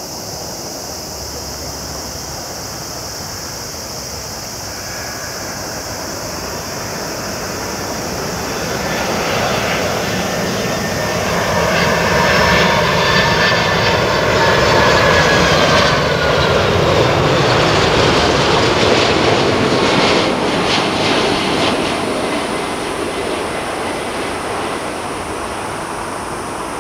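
Jet engines of a Boeing 747-400 freighter on final approach, the noise swelling as it passes close by, with a whine that falls in pitch at the loudest point, then easing off.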